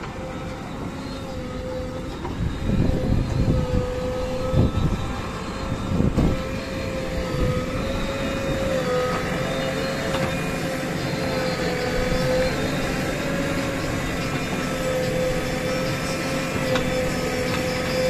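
JCB 3DX backhoe loader's diesel engine running under load with a steady whine as the backhoe digs, and a few heavier thuds from the bucket biting into soil between about three and six seconds in.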